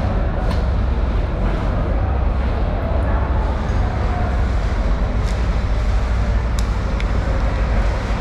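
Steady low rumble of background noise, with a few faint sharp clicks.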